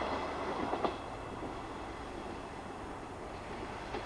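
Diesel train approaching along the line from a distance, a steady running noise of engine and wheels that is slightly louder in the first second.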